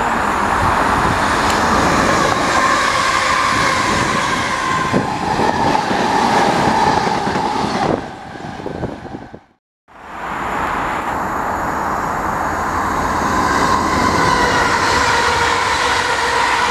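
Electric multiple-unit trains passing close by on the rails: a loud rumble of wheels with a steady motor whine. The sound drops away about eight seconds in and cuts out briefly, then a second train comes through just as loud.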